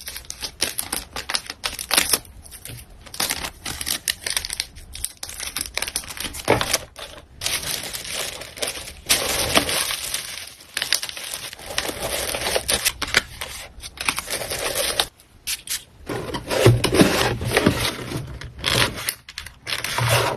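Hands packing an order: packaging crinkling and rustling, with many small clicks and scrapes as items are handled, and a louder stretch of rustling near the end.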